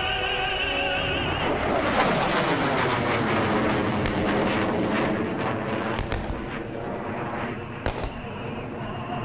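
General Dynamics F-111 passing in full afterburner: a crackling jet roar that swells in about two seconds in and sweeps down in pitch as it goes by, then fades, with one sharp pop near the end. Opera music over the PA is heard at the start, under the jet.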